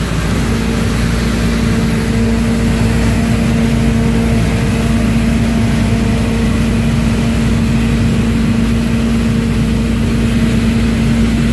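John Deere combine harvester running steadily, its engine and threshing machinery giving a constant drone with a steady hum that settles in about half a second in.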